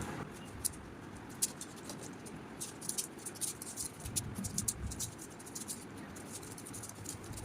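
Rubik's cube being turned, its plastic layers clicking in quick irregular runs, busiest in the middle stretch.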